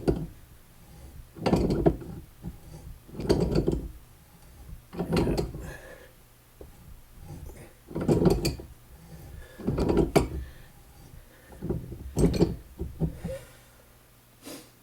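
Steel spindle of a Case 224 mowing deck being worked round in its housing with a pipe wrench: about seven short scraping strokes, roughly two seconds apart. A ridge worn on the spindle is making it hard to turn.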